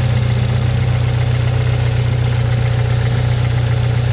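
Toyota Tacoma 2.7-litre four-cylinder engine idling steadily and smoothly, its vacuum leak cured.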